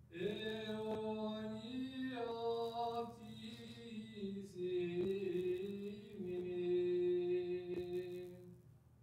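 Greek Orthodox priest chanting unaccompanied: one man's voice singing long held notes that step and slide between pitches, stopping shortly before the end.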